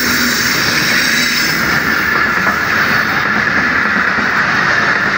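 Passenger train's coaches rolling past on the through line, a loud steady rush of wheel and rail noise.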